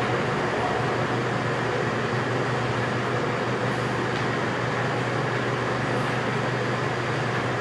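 Steady low hum with an even rushing noise over it, like a machine or fan running, unchanging throughout.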